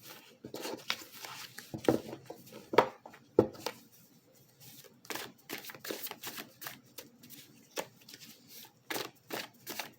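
Tarot cards being shuffled by hand: irregular papery slaps and taps, loudest a couple of seconds in, with a card jumping out of the deck.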